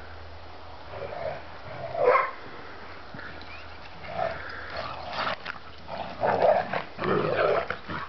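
Several dogs play-fighting, with short growls and barks coming in bursts. The calls start about a second in, the loudest comes just after two seconds, and they grow busier in the second half.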